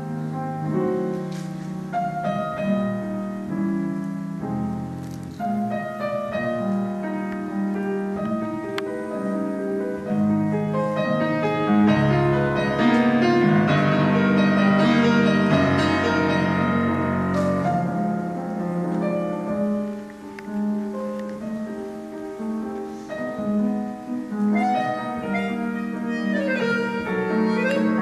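A piano and accordion duo playing an instrumental piece live, held reed chords over piano, swelling loudest around the middle and ending with quick runs of notes.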